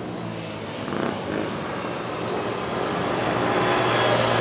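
Racing quad ATV engines running on the circuit, a steady buzzing drone that grows louder over the last second or so as the machines come nearer.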